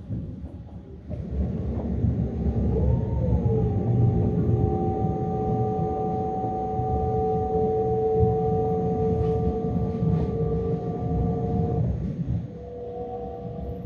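Metra Electric commuter train running, heard from inside the car: a heavy rumble with a steady two-note whine over it that wavers about three seconds in, holds, and drops away near the end along with much of the rumble.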